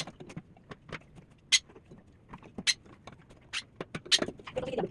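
Irregular sharp clicks and taps, roughly one a second, from tools and parts being handled while a microwave oven is worked on.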